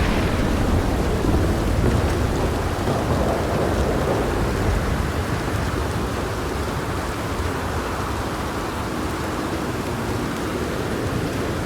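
Steady rain with a long, low rumble of thunder that slowly fades away over several seconds.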